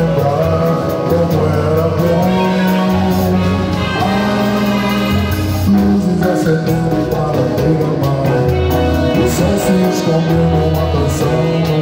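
Live band music: an electronic keyboard played with both hands over a bass line and drums, with a quick, steady cymbal beat and a voice singing.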